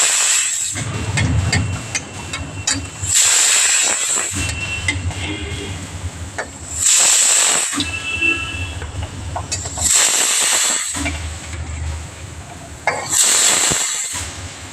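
Big pooris deep-frying in hot oil: a constant sizzle that surges loudly about every three seconds.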